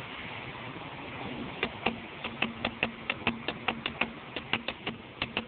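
A rapid, uneven run of sharp clicks or taps, about four a second, starting about a second and a half in over a steady hiss.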